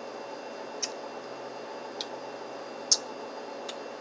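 A person sipping and tasting a juice: four short, sharp mouth and swallowing clicks, the third the loudest, over a steady room hum.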